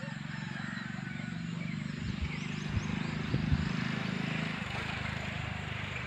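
Engine of a passing motor vehicle running steadily, growing louder towards the middle and fading again, with a few sharp knocks a couple of seconds in.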